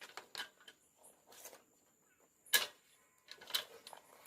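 A few separate light clicks and taps, the loudest about two and a half seconds in.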